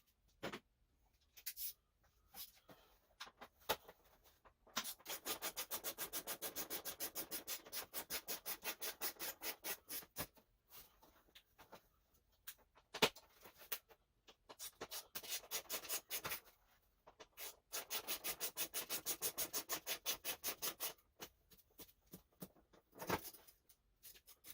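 Hand ratchet clicking in quick, even runs of about five clicks a second as bolts are turned out during motorcycle disassembly. There are two long runs, the second with a short pause, and a few separate clicks and knocks of tools between them.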